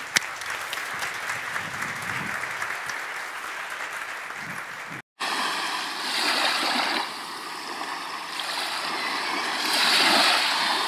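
Audience applauding for about five seconds, then cut off abruptly. After a brief silence comes a steady rushing noise that swells louder twice.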